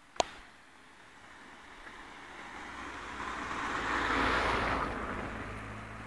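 A vehicle passing by: its noise swells to a peak about four seconds in and fades away, with a low rumble under it. A sharp click comes right at the start.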